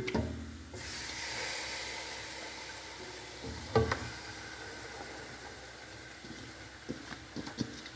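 Onions frying in coconut oil, a steady sizzling hiss that sets in about a second in and slowly fades. A short dull knock near four seconds in as whole marinated chickens are set into a metal pot, and a few light clicks near the end.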